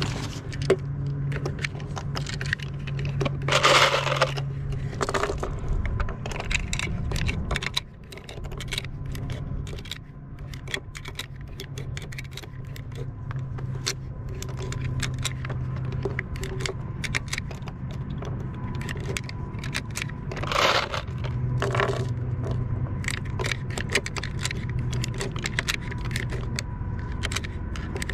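Loose brass pistol cartridges clinking and rattling as they are picked out of ammo cans and loaded into a magazine, with many small metallic clicks. A low steady hum runs underneath, and two louder rushes of noise come about four seconds in and again about twenty seconds in.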